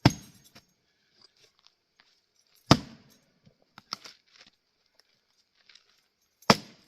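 Splitting axe striking Douglas fir rounds: three sharp blows about three seconds apart, with lighter knocks of wood between them.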